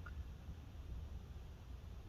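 Quiet room tone: a faint steady low hum with light hiss, and no distinct event.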